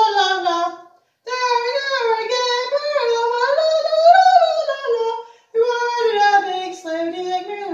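A single high voice singing unaccompanied, in long sung phrases with brief breaks about a second in and again about five seconds in.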